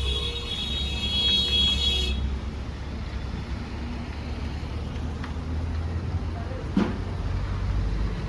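Tractor engine running steadily with a low rumble. A high whine over it cuts off abruptly about two seconds in, and there is a single click near the end.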